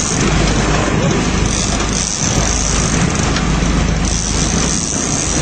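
Sportfishing boat's engine running steadily under a loud, even rush of noise.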